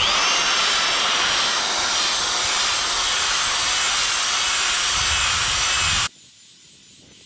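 Milwaukee electric variable-speed drill spinning a ball hone in a Ford 4.0 SOHC V6 cylinder bore, de-glazing the wall for new piston rings. A steady high motor whine over a hiss, rising quickly as it spins up at the start and cutting off suddenly about six seconds in.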